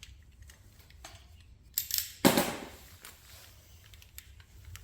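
A knife and a plastic grease packet handled on a workbench while the packet's corner is cut off: a few light clicks, then two sharp clatters close together about two seconds in.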